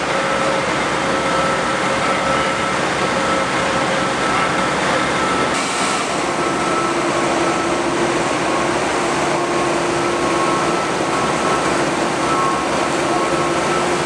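Steady mechanical drone of heavy construction-site machinery, with faint humming tones that shift about six seconds in.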